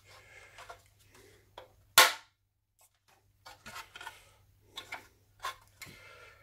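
Hard plastic parts of a Bigtrak toy body being handled: one sharp, loud plastic click about two seconds in, then a series of lighter clicks, knocks and rubbing as the shell and its rear panel are turned and set down.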